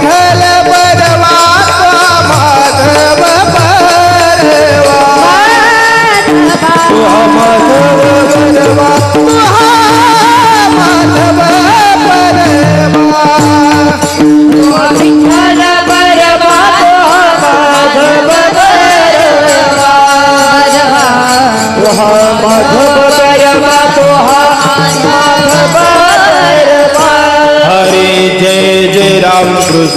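Marathi kirtan devotional music: a woman singing the panchapadi in long wavering melodic lines over a held drone note and drum accompaniment.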